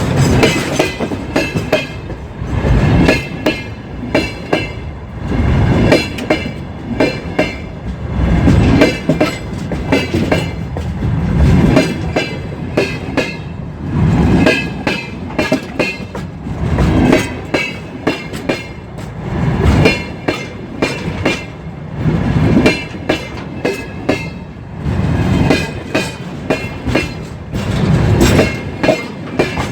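Empty freight wagons rolling over a railway bridge, their wheels clattering loudly over the rail joints in clusters of clacks that come round about every three seconds, over a steady rumble with a faint high ringing.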